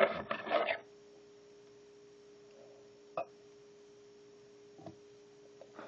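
Rubbing and scraping from hands working a fly at the tying vise, loud for under a second at the start, then one sharp click about three seconds in and a soft knock near five seconds. A steady low hum of two tones runs underneath.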